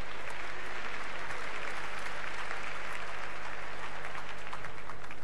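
Large arena audience applauding, the clapping growing fuller in the middle and thinning out near the end.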